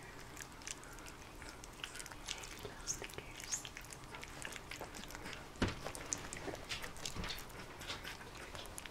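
Two-week-old Bernese mountain dog puppies mouthing and sucking at each other: soft wet smacking clicks, with a few brief high squeaks.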